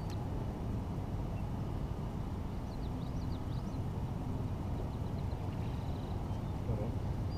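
Steady low outdoor rumble with a few faint, short bird chirps about three seconds in.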